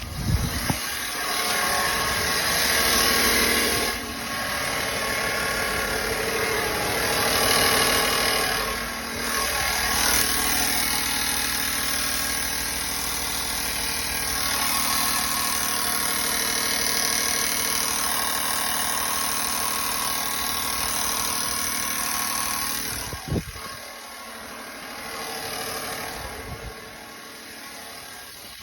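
2017 Chevrolet Silverado engine running steadily, with the ticking noise that appeared after its DOD (cylinder-deactivation) delete. The sound drops noticeably in level about 23 seconds in.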